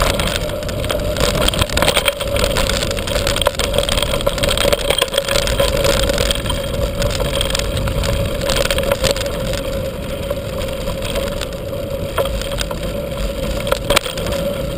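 Mountain bike rolling fast over dirt and gravel, heard from a camera on the bike: continuous wind rush and tyre noise with frequent knocks and rattles from bumps in the path.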